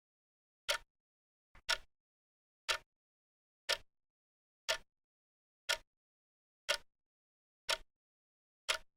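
Clock ticking once a second: sharp, short ticks with dead silence between them. The tick just before two seconds in comes as a quick double click.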